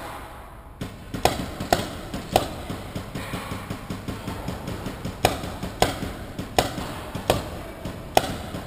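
Paintball fire: about eight sharp, single cracks of markers and balls striking, at irregular intervals. Three come in the first few seconds, then after a lull of about three seconds five more follow.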